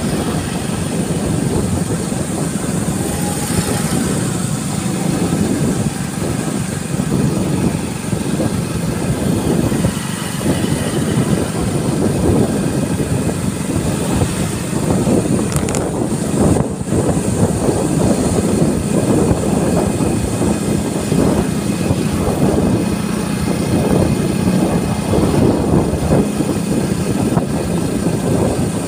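Motorcycle riding along a road heard from the rider's seat: the engine running steadily under a loud, even rush of wind on the microphone.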